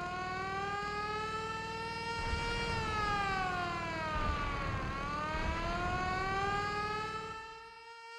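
A siren sound effect wailing slowly up and down: it rises, falls about halfway through, then rises again, over a low engine-like rumble that stops shortly before the end.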